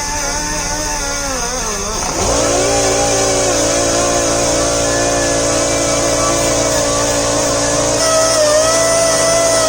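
Pneumatic die grinder with a wire brush wheel running on rusty steel plates, its whine wavering and dipping in pitch as the brush is pressed on. About two seconds in, the pitch drops sharply and picks up again, and a steady lower hum joins.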